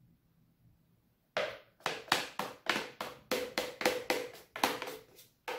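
About a second and a half in, a quick, irregular run of about fifteen sharp knocks with a faint ringing note: kitchenware being tapped while cake batter is emptied into an aluminium cake pan.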